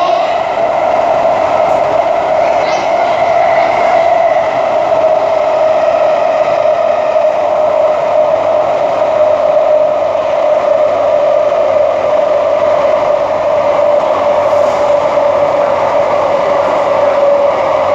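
SMRT C151A metro train running between stations, heard from inside the car: steady running noise with a prominent whine that drifts slightly lower.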